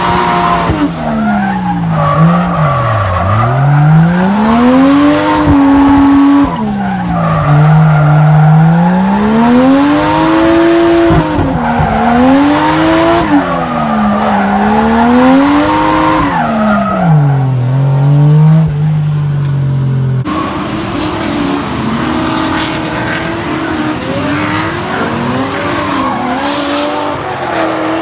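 Drift car's engine heard from inside the cabin, revving up and down again and again as the car slides through corners, with tyres squealing. About twenty seconds in, the sound cuts to trackside: several drift cars running in tandem, with overlapping engines and squealing tyres.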